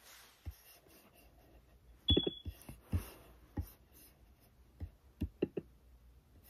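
Scattered clicks and taps on a laptop keyboard and trackpad, about eight in all and spread unevenly, with a brief high tone about two seconds in.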